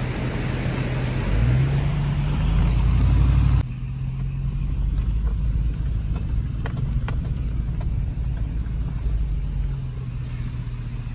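A vehicle engine runs with a steady low hum while driving slowly, heard from inside the cab. The engine note rises about a second and a half in. A louder hissing noise cuts off abruptly after about three and a half seconds, followed by a few light knocks.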